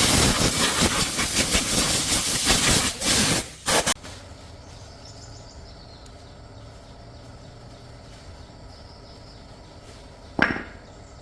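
Loud steady hiss of a pressurised jet that stops abruptly about four seconds in, leaving a faint steady background with one brief sharp noise near the end.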